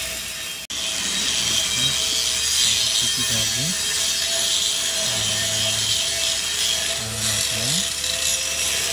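Steady hissing, crackling workshop noise, with low humming tones that come and go three times. The sound cuts out for an instant just under a second in.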